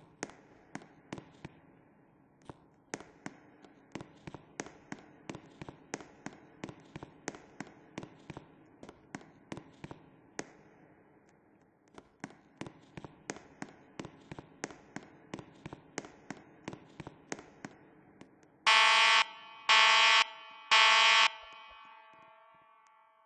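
Sharp clicking, about two or three clicks a second with a short pause partway through, over a faint steady hum. Then three loud electronic beeps about a second apart, ringing on briefly after the last.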